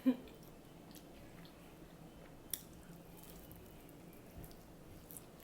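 Close-miked eating of an egg roll: quiet wet chewing and mouth clicks, with a short, louder mouth sound at the very start and sharp clicks about halfway through and near the end.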